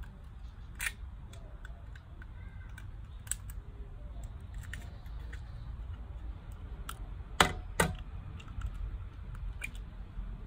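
Raw eggshells cracking in the hands: a few sharp clicks, with a louder double crack a little after midway, over a low steady rumble.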